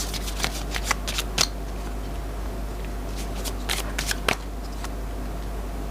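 Tarot cards being handled and flicked: a scatter of light, sharp card snaps, a cluster in the first second and a half and another about four seconds in.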